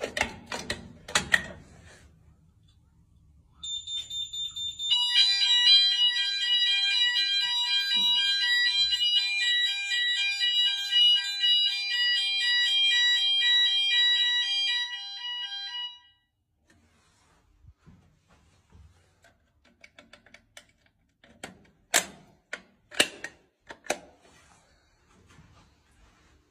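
Fire alarm sounding: a fast pulsing high beep starts a few seconds in, joined by a loud steady shrill alarm tone of several pitches, which cuts off suddenly a little past the halfway point as the alarm is reset. A few sharp clicks come at the start and again near the end.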